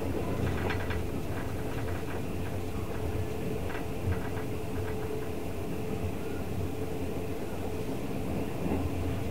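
Twilight Express sleeper train running at speed, heard from inside a passenger coach: a steady low rumble of wheels on rails under a steady hum. A few rail-joint clicks come about half a second in and again around four seconds in.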